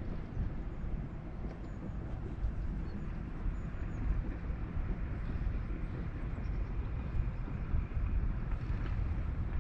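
Wind buffeting the microphone, a steady gusty low rumble.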